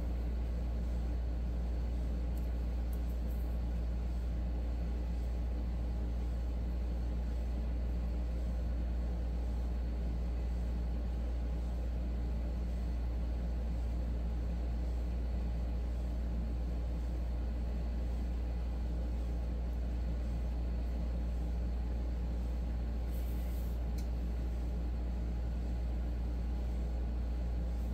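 A steady low rumble with a haze of background noise, with one faint, brief rustle about 23 seconds in.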